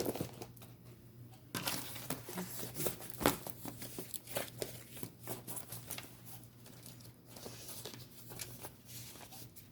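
Tarot cards being handled and shuffled: a string of irregular papery rustles and soft clicks, with a couple of sharper taps.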